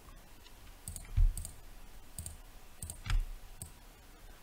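Computer mouse buttons clicking, a dozen or so sharp clicks at irregular intervals of about half a second. Two louder clicks, about a second in and about three seconds in, come with a low knock.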